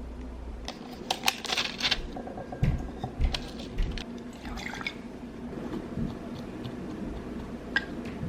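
Water being poured and handled, with short splashy rushes and a cluster of clicks and knocks about a second in, then a few scattered knocks.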